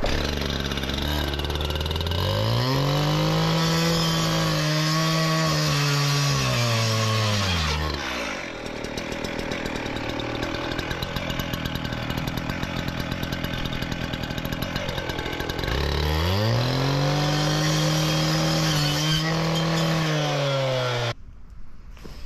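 Stihl two-stroke cut-off saw revving up and cutting through PVC drain pipe, its pitch sagging slightly as the wheel bites, then dropping to a rhythmic idle for several seconds. It revs up for a second cut and is switched off near the end.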